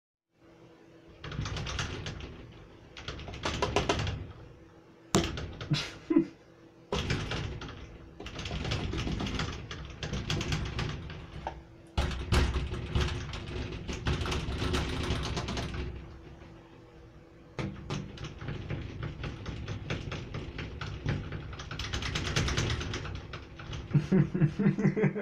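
Fingertips rapidly tapping on a glass shower door, in bursts of quick clicks lasting from about a second to several seconds, with short pauses between.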